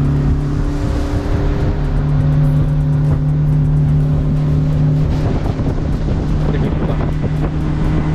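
Speedboat running at speed, its motor and the rush of wind and water making a loud, steady noise. Background music with held chords that change a few times plays over it.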